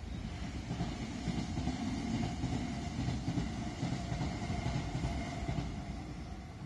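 Electric train running past at the level crossing: a steady rumble with a faint whine.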